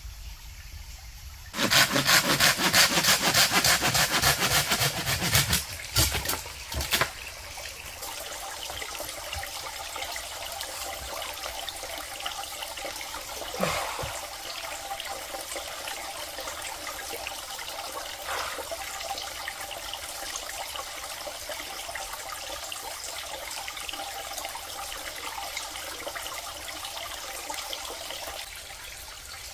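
Steady trickling water, broken near the start by a loud, rough, rapidly repeating rasping noise that lasts about four seconds and ends in two short rasps.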